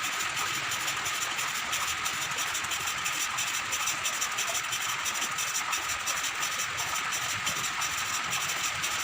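Engine valve being lapped into its seat in the cylinder head of a Sogo 13 hp engine with abrasive grinding compound: a steady, rapid gritty scraping hiss. The valve seat does not yet seal evenly, so it is being lapped again.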